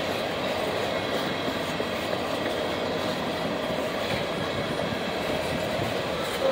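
A string of empty Norfolk Southern coal hopper cars rolling past at steady speed: a continuous rumble and rattle of steel wheels on the rail joints, even in level throughout.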